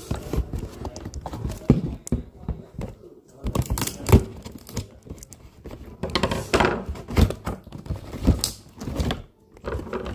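Cardboard toy box being handled and opened: irregular thunks, knocks and scraping of hands and packaging against the box.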